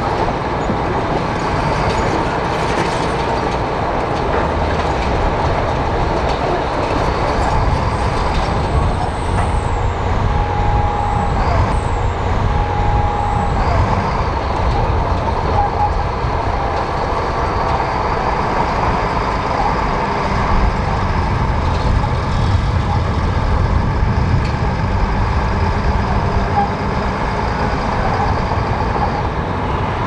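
Komatsu crawler bulldozer's diesel engine running steadily under load as it pushes soil with its blade, with the rattle of its steel tracks.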